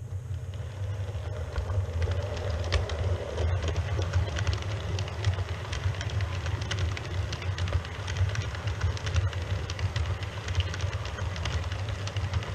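OO gauge model Pendolino train running past on the layout: a steady low motor hum and track rumble, with a rapid, irregular patter of clicks from the wheels on the track that thickens about two seconds in.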